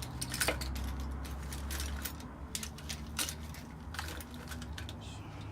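A spatula prying and scraping at the glued seam of an Apple 87W USB-C power adapter's plastic case, with irregular clicks and scratchy scrapes every second or so as the tightly glued housing resists opening.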